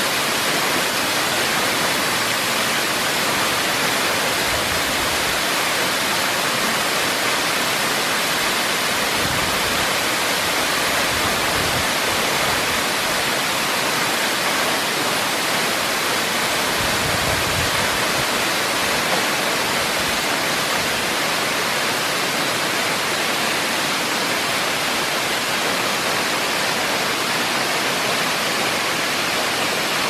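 Ashgill Force, a tall waterfall falling onto rocks and a pool: a loud, steady rush of falling water, with a few brief low rumbles underneath.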